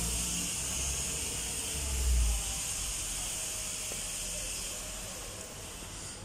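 A steady high hiss that cuts off just before the end, with a low rumble swelling briefly about two seconds in.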